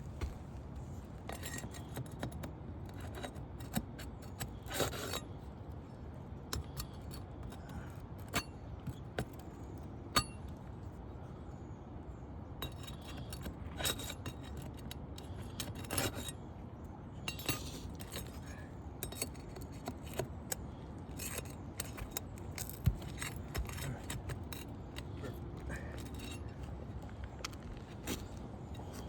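Irregular clicks, short scrapes and light metallic clinks of hand work on an asphalt shingle roof, over a steady low background rumble.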